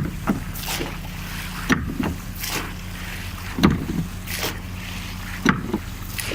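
Oars of a rowed naval pulling boat working in unison: a sharp knock about every two seconds as the oars hit the rowlocks and the water, each followed by a softer one, over a steady low hum.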